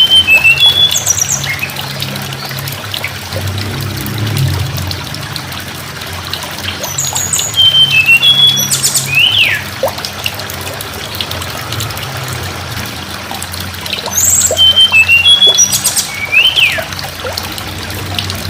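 Tledekan gunung songbird singing short phrases of high whistled notes that step downward, ending in a quick rising-and-falling whistle. The phrase comes three times, about seven seconds apart, over a steady trickle of running water and a low background hum.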